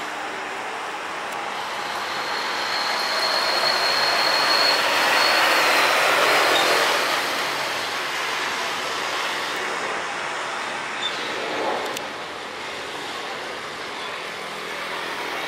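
Airbus A320 airliner's twin jet engines at takeoff thrust through the takeoff roll and liftoff: a loud roar that swells to a peak about five seconds in, with a thin high whine over it, then eases off as the jet climbs away.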